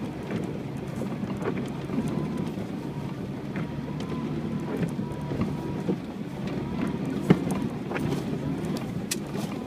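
UAZ Patriot running off-road: a steady engine hum with a faint whine, and scattered knocks and rattles, the sharpest about seven seconds in.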